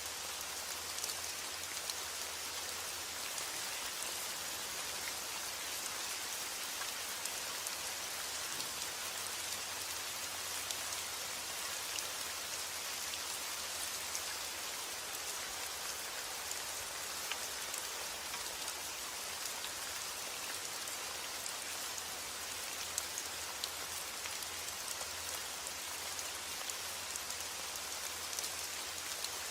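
Steady rain falling, a dense even hiss made of many small drop ticks.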